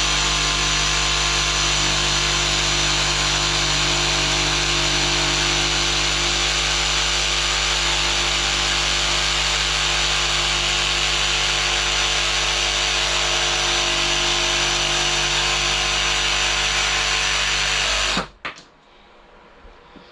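DeWALT DCS334 20V brushless cordless jigsaw cutting through a 2x4, running at a steady speed, then stopping abruptly near the end.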